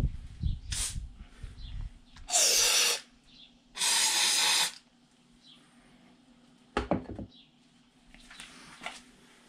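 Two short sprays from an aerosol can of fogging oil, each under a second long, about a second apart, with a few handling knocks before and after. The oil is going into the cylinders through the spark plug holes of an outboard that has been in storage for years.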